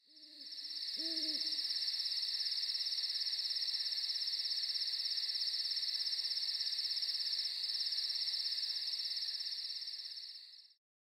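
Night ambience: a steady, high, fast-pulsing insect trill, with two low hoots in the first second and a half. The trill fades in at the start and fades out shortly before the end.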